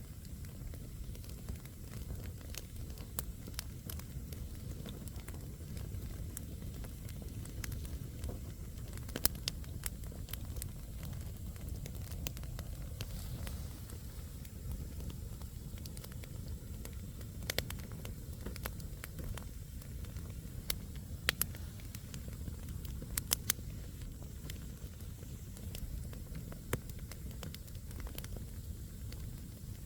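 Wood campfire burning: a steady low rush of flames with scattered sharp crackles and pops from the burning logs, a few louder pops about nine, seventeen, twenty-one and twenty-three seconds in.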